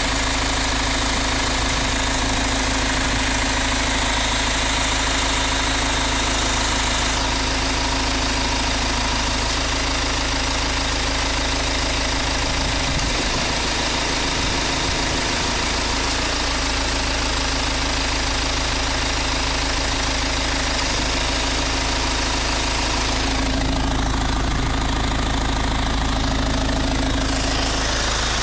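BMW X3 E83 2.0d four-cylinder turbodiesel idling steadily with the air conditioning running, a continuous mechanical noise that the owner takes for an air-conditioning fault.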